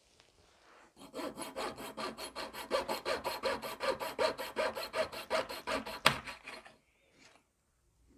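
A small fine-toothed hobby saw cutting a thin wooden mast dowel with quick, even back-and-forth strokes, about six a second, starting about a second in and stopping near the end. A sharp click comes just before the sawing stops.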